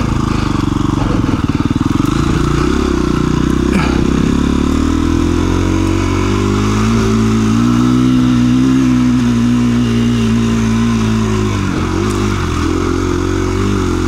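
A 2017 KTM 350 EXC-F's single-cylinder four-stroke engine pulling the dirt bike up a rocky hill track. The revs climb about five seconds in, hold high, and drop away a couple of seconds before the end, with a sharp knock about four seconds in.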